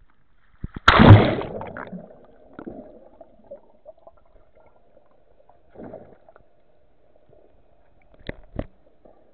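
Sea water splashing loudly over an action camera as it plunges beneath the surface on a free diver's dive, about a second in, fading quickly. Then muffled underwater sound with a faint steady hum, a brief swell, and two short clicks near the end.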